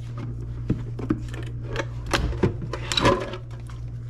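Cardboard and plastic packaging being handled as a bow sight is unboxed: scattered taps, clicks and light scrapes, over a steady low hum.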